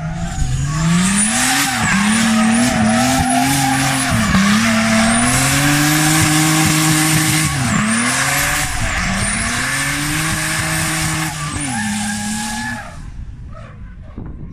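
A drift car's engine revving up and dropping back over and over as it slides, with its tyres squealing and skidding. The sound fades away near the end.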